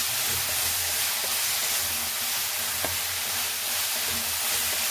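Chopped onions, tomatoes and peas sizzling steadily in a hot metal kadhai as they are stir-fried on a high flame, with a few light clicks of the spatula against the pan.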